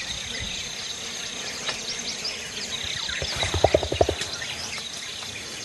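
Rainforest ambience: a steady high insect drone with many birds chirping. About three and a half seconds in comes a short run of quick, low pulsing calls.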